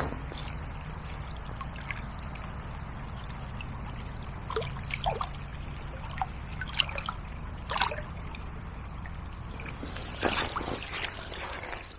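Small river flowing and trickling under a steady low rumble, with scattered small clicks and knocks and a brief cluster of them near the end.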